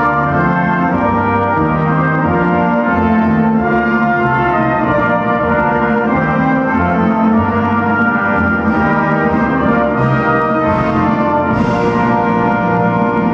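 Orchestral music led by brass, playing held chords that change every second or so.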